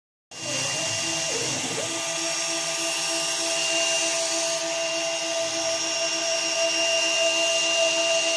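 Hobby CNC router running, with the steady high whine of its spindle over the steady tones of its stepper motors. The motor tones waver briefly in pitch about a second and a half in.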